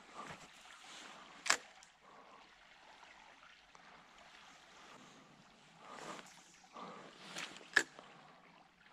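Spinning rod and reel being handled while fishing: two sharp clicks about six seconds apart, one about a second and a half in and one near the end, with soft rustles between them.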